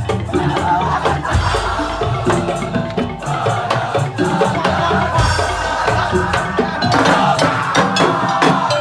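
Madurese tong-tong ensemble playing an arrangement: many wooden slit-drum and drum strikes over sustained melodic tones.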